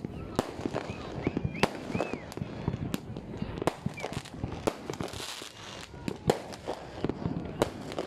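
Fireworks going off: a rapid, irregular string of sharp bangs, several a second, over a continuous low rumble.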